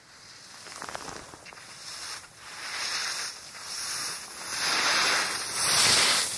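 Skis hissing and scraping over snow through a run of turns, each turn swelling and fading about once a second, louder toward the end.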